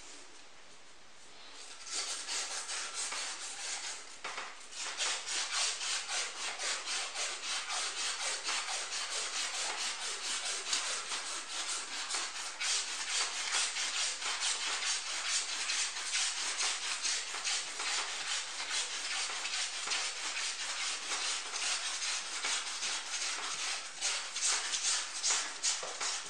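A metal sculpture support rod being polished by hand, with rapid back-and-forth rubbing strokes that make a scratchy hiss. The rubbing starts about two seconds in, breaks off briefly, then goes on steadily.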